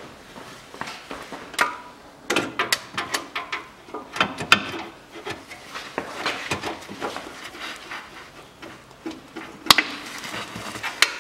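Metal hex tool clicking and knocking on the transfer case fill plug as it is worked loose, with rustling of sleeves against the car's underbody. It comes as an irregular string of sharp clicks, the loudest near the end.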